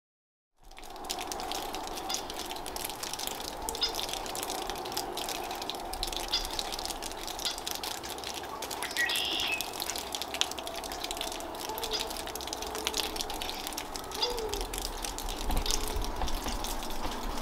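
Steady rush of running and dripping water with many small ticks. A short high chirp comes about nine seconds in.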